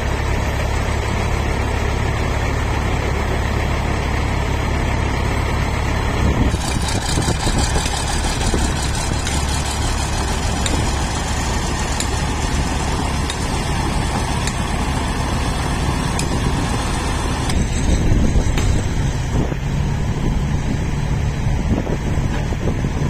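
Old crawler tractor's engine running steadily as the machine drives over dirt on its steel tracks, with a harder, clattering higher-pitched noise added from about six seconds in until about seventeen seconds in.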